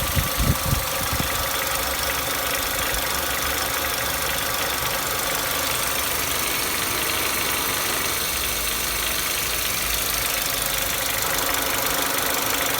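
A Nissan Almera G15's 1.6-litre four-cylinder petrol engine idling steadily, with a rattle like a loose nut knocking about. The owner suspects the hydraulic lifters, possibly on the first cylinder, and the noise goes away at higher revs.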